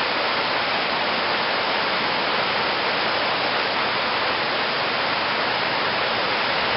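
Floodwater in a storm-swollen creek rushing steadily, a constant loud rush of water with no breaks.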